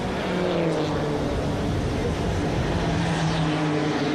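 Peugeot RCZ race cars at full speed, heard through a television's speaker: several engine notes holding, with small shifts in pitch, over a wash of track noise.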